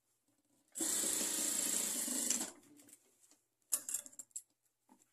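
Sewing machine running in one steady stitching run of about a second and a half, then stopping. A few brief clicks and rustles of fabric being handled follow.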